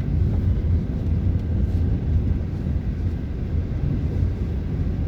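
Steady low engine rumble with a noisy wash over it, as heard while riding in a moving vehicle.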